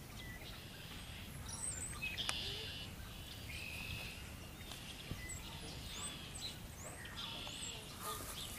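Small birds chirping and singing in the background: short rising chirps and brief higher-pitched song phrases every second or two, over a steady low rumble.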